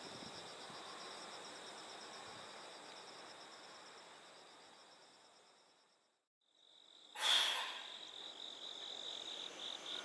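Insects chirping in a steady, pulsing high trill that fades out about six seconds in. After a moment of silence comes a short loud burst of noise, then a different insect trilling in quick, even pulses at a slightly lower pitch.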